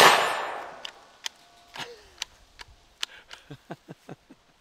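A single 12-gauge shot from a Stevens 320 pump shotgun, ringing out and fading over about a second, followed by a few sharp clacks and a man laughing near the end.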